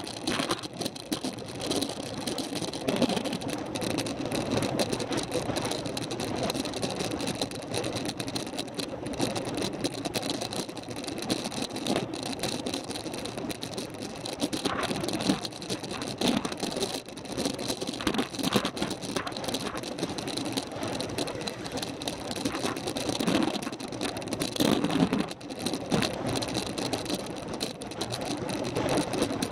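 Bicycle being ridden, picked up close on an action camera: steady road and wind noise with frequent short rattling clicks.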